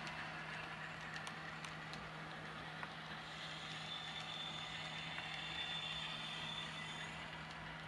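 Model railway container train running past: a steady low hum with a few faint clicks.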